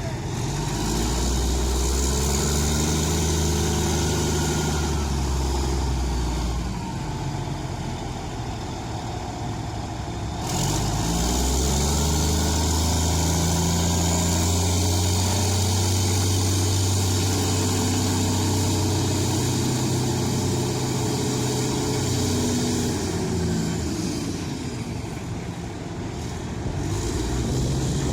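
Caterpillar 992C wheel loader's V12 diesel engine revving up and holding under load, easing back about seven seconds in, then revving up and holding again for about twelve seconds. It drops back and picks up once more near the end.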